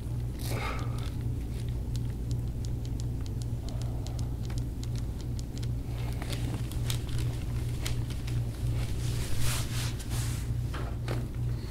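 Hands pressing and rubbing over a bare back and a towel during a chiropractic back mobilisation, with scattered small clicks and rustling over a steady low hum.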